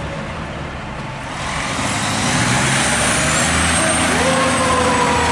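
Fire engine running, its noise building from about a second and a half in as it gets under way. Near the end its vintage GE Powercall siren begins to sound.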